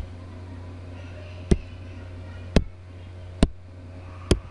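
Four sharp computer mouse clicks about a second apart, over a steady low hum.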